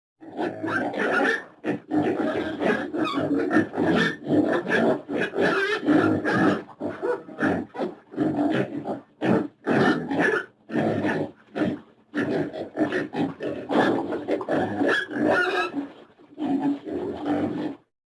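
Pigs grunting in quick, dense runs of grunts, broken by short pauses every few seconds.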